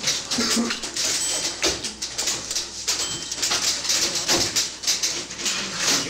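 Several old typewriters typing at once: a dense, irregular clatter of key strikes clicking away.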